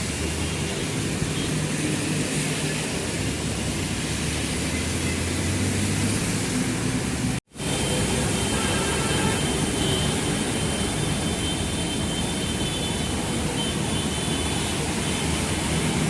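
Steady, noisy roar of traffic on a flooded road, with a low engine hum underneath. The sound cuts out abruptly for an instant about halfway through.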